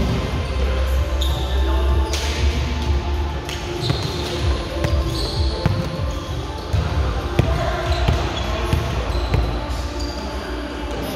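Ambience of a large sports hall on an indoor volleyball court between rallies: a ball bounced on the court floor several times, with short high squeaks of sneakers on the court and echoing background voices.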